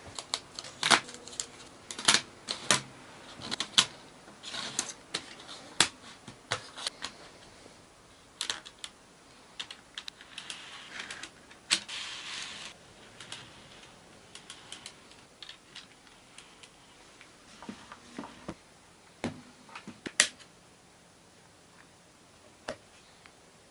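Irregular sharp plastic clicks and clacks of N-gauge Kato Unitrack sections and accessories being handled and set down on a wooden table. They come thick in the first several seconds, then sparser, with a short rustle around the middle.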